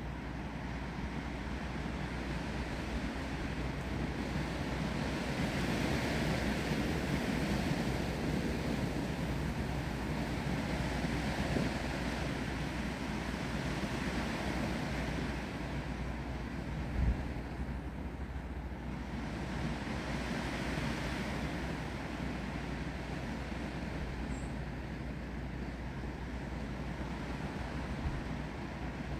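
Wind gusting through trees with rain: a steady rushing noise that swells twice, with a single short low thump about 17 seconds in.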